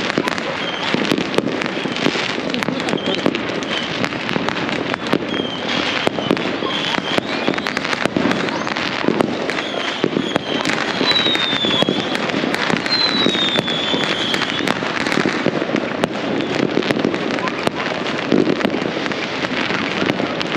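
Many fireworks and firecrackers going off at once, a dense unbroken stream of overlapping bangs and pops, with a couple of short falling whistles about halfway through.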